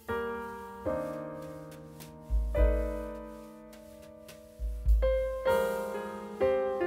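Background piano music: chords struck about once a second, each ringing and fading away, with a deep bass note swelling under two of them.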